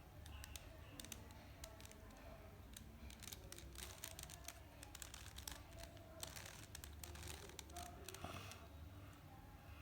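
Plastic 3x3 Rubik's Cube faces being twisted by hand: quiet, irregular clicking and clacking as the layers turn.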